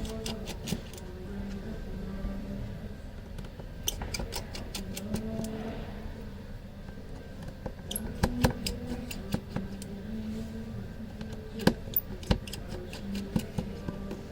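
Small sharp clicks and taps of a precision screwdriver, screws and tools against a Samsung Galaxy A13's plastic frame as it is taken apart, coming in small clusters, over a faint low hum that comes and goes.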